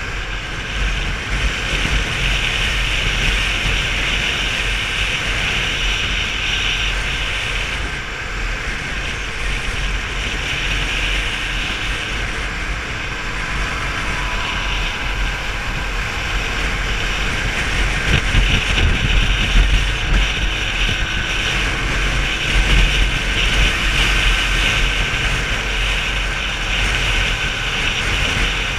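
Wind buffeting a camera mounted on a motorbike moving at road speed, over the steady sound of the bike's engine and tyres.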